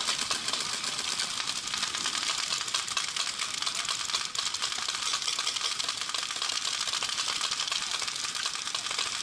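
Many paintball markers firing at once: a dense, unbroken rattle of rapid shots.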